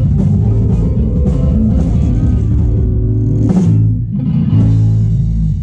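Live band playing loudly: keyboards over a heavy, sustained bass line, with guitar.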